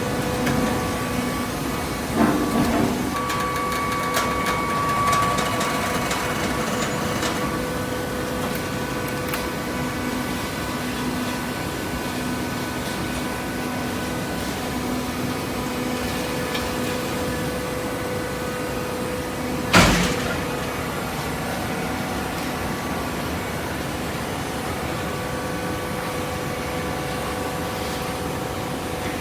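Hydraulic waste paper baler running with a steady machine hum, with a knock about two seconds in and a single loud sharp bang about twenty seconds in.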